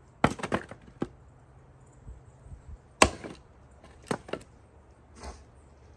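Wood Bullet splitting axe chopping into firewood, with sharp knocks on the wood and split pieces clattering. A cluster of hits comes within the first second, the single sharpest and loudest chop about three seconds in, then a few lighter knocks.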